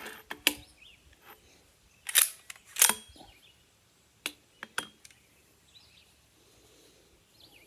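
Sharp metallic clicks and clacks of a semi-auto Sten Mk2 carbine being handled and readied to fire, a few separate strokes with the two loudest about two and three seconds in.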